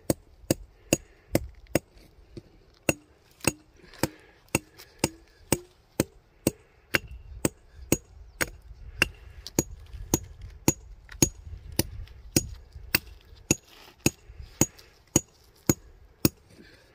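A rock hammer striking rock in a steady, even rhythm, about two to three sharp blows a second, as sulfide-rich samples are knocked off an outcrop.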